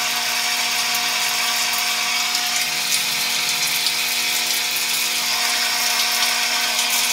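Overhead rain showerhead running, a steady hiss of spraying water with a faint steady hum under it.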